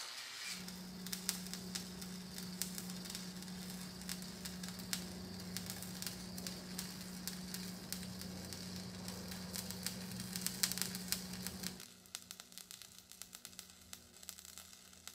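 Stick (arc) welding on steel tubing: the electrode's arc crackling and sizzling steadily, with a faint low hum underneath. About twelve seconds in the sound turns quieter, the crackle going on.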